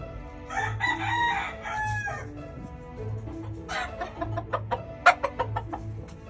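A rooster crows once, about half a second in, for nearly two seconds, followed a little later by a quick run of short, sharp clucks. Background music with a steady beat plays underneath.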